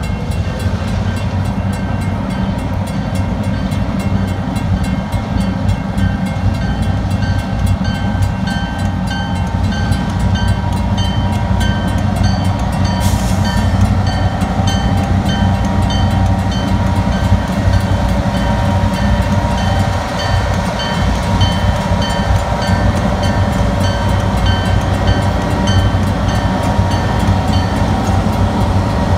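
Railroad crossing bells ringing in a steady rhythm over the low rumble of a CN diesel freight locomotive that approaches and rolls through the crossing.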